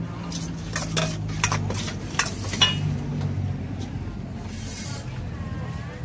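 Metal utensils and dishes clinking, with a run of sharp clinks in the first three seconds, over a steady low hum.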